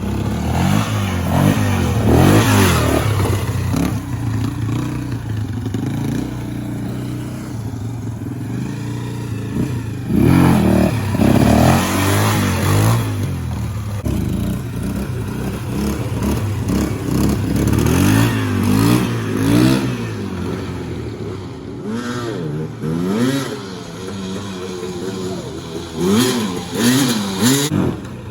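Small off-road vehicle engine revving up and down over and over as it is ridden, with louder surges of throttle several times.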